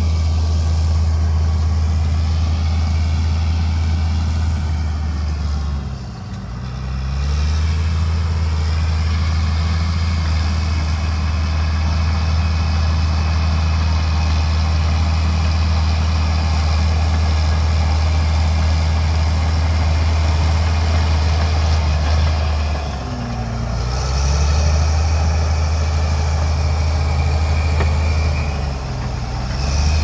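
Shantui crawler bulldozer's diesel engine running steadily under load as the blade pushes soil, a loud low drone. The sound dips briefly three times.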